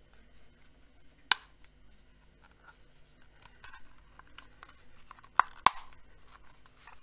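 Plastic housing of a Xiaomi Weiyuan handheld bladeless fan being handled and pressed together, with faint scraping and ticking, one sharp click about a second in and a louder pair of clicks a little after five seconds.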